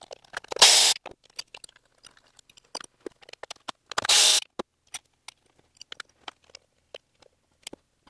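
Scattered light clicks and taps of hand tools and engine parts being handled under a car's hood, with two brief louder scraping noises, one about a second in and one about four seconds in.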